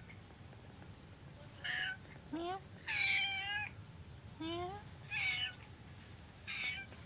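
Tortoiseshell-and-white cat meowing repeatedly, about six meows, the longest and loudest about three seconds in, some short ones rising in pitch: a cat begging for food.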